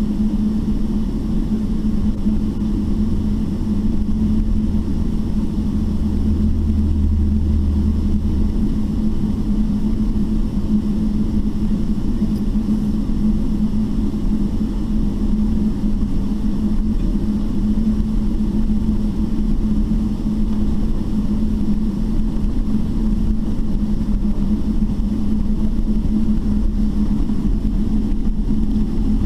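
Steady cabin drone of a Boeing 777-300ER taxiing slowly, its GE90 engines at taxi power, with a pronounced steady hum and a low rumble. A deeper rumble swells for a few seconds near the start.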